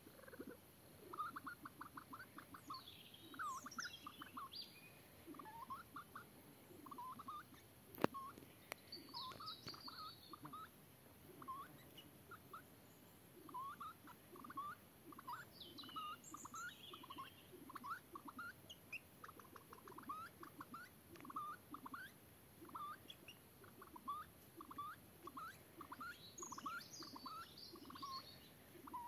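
Male Reeves's pheasant giving faint, short chirping notes, two or three a second, with a few higher brief chirps mixed in and a single sharp click about eight seconds in.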